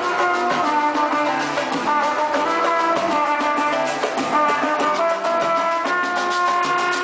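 Samba rock music with brass, drums and guitar playing over a steady, busy beat.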